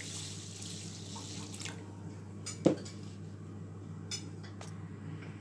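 Water pouring from a plastic measuring jug into a pan of uncooked rice, stopping about two seconds in. A few light knocks follow, one sharp knock about halfway through, over a steady low hum.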